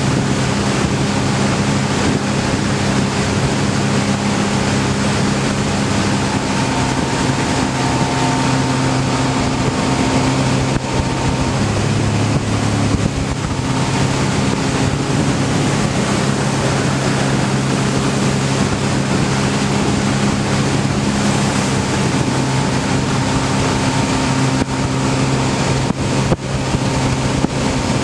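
Bass boat's outboard motor running steadily at high speed through a narrow channel, over a broad rush of wind and water noise. The engine note shifts briefly about halfway through.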